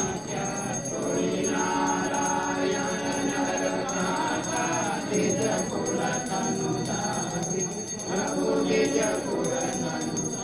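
Music: voices singing over steadily ringing, jingling bells.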